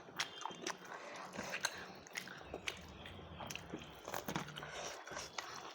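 A person chewing a mouthful of rice close to the microphone, with many quick irregular mouth clicks and smacks.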